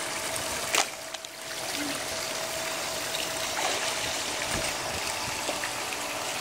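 Steady rush of water falling from a pool's wall spillway into the pool, with a single sharp click about a second in.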